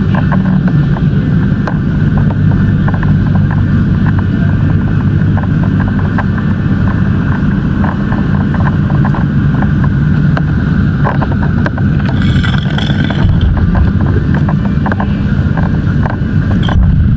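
Fire engine's motor running steadily at a constant speed, with many scattered crackles and clicks over it and a short higher-pitched sound about twelve seconds in.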